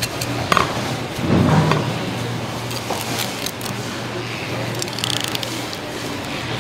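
Filleting knife clicking and ticking as it runs along a salmon's backbone and rib bones, over a steady low hum of background noise. A brief louder rumble comes about a second and a half in.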